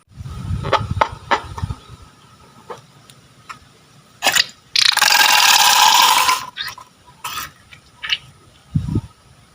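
Close-up handling of slime and rubber balloons: scattered clicks and squishes over a low rumble, with a loud hiss lasting about a second and a half about five seconds in and a low thump near the end.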